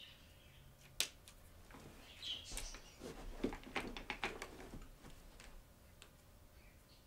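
Marker pens being picked up and handled: a sharp click about a second in, then a run of small plastic clicks and clatter, with a few faint high chirps.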